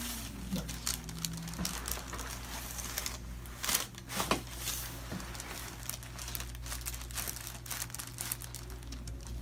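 Irregular crinkling and rustling of handled material, with a steady low hum underneath.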